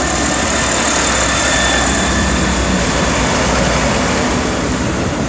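Class 158 diesel multiple unit passing close by over a level crossing: loud, steady engine and wheel noise that eases slightly near the end.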